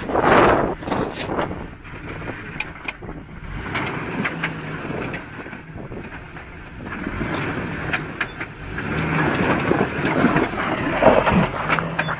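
Off-road truck crawling up a rock ledge: its engine revs up and eases off in surges, with scattered knocks of tyres on rock and wind buffeting the microphone.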